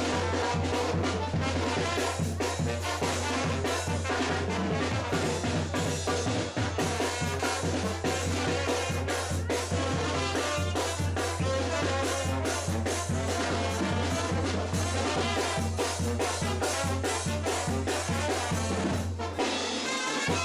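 Upbeat dance music with brass and a steady drum beat.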